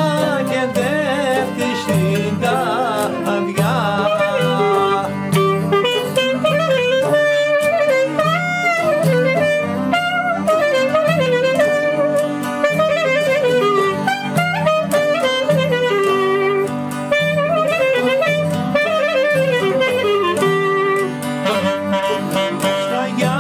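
Greek folk clarinet playing an instrumental passage, a melody full of bends and slides, over acoustic guitar accompaniment.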